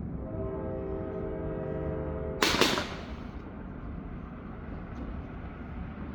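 A steady horn-like chord of several tones holds for about two seconds and is cut off by one loud, sharp firework bang with a short fading tail.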